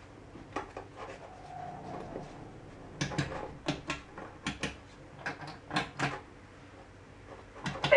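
Metal momentary push buttons on a steel panel being pressed one after another, giving a run of sharp clicks. There are about ten clicks over roughly five seconds, starting about three seconds in.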